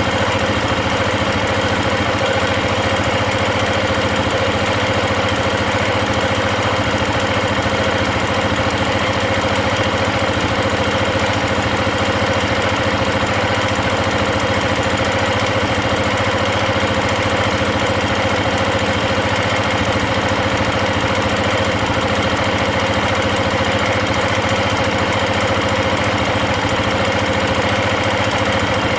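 KTM 690 Enduro's single-cylinder engine idling steadily, with a valve chatter from the top end that appears once the engine is warm: a noise its owner finds hard to pinpoint, heard after a rebuild with new rockers, shafts and cam chain tensioner.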